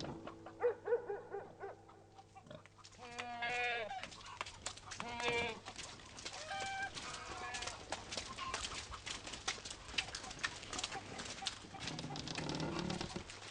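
Farmyard animals: chickens clucking, with a few short bleating calls in the first half and many quick clicks and clucks through the second half.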